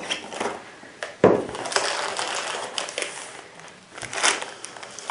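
Packaging being handled and unpacked: irregular crinkling and rustling, with a sharp knock about a second in.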